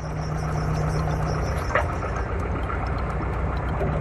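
Backhoe loader's diesel engine running steadily, heard from inside the cab, with a brief faint click about two seconds in. The machine is old, as the operator says.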